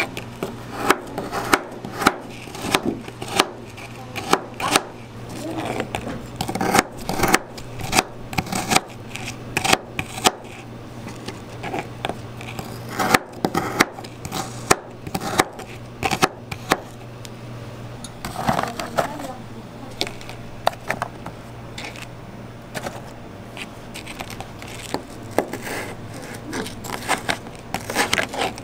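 Kitchen knife chopping strawberries, then mango near the end, on a plastic cutting board: irregular sharp knocks of the blade hitting the board, a few a second.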